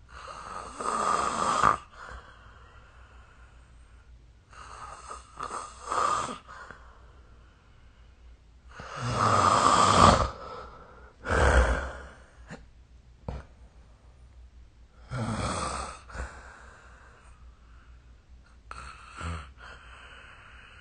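A sleeping person snoring: six noisy breaths, each a second or two long, at uneven gaps of a few seconds, the loudest about ten seconds in.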